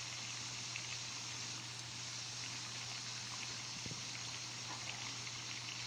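Sardine broth boiling steadily in a wok: a constant bubbling hiss over a steady low hum.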